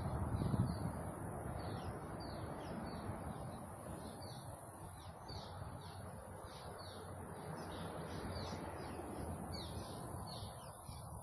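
A small bird chirping over and over, short falling chirps about twice a second, over a steady low background noise.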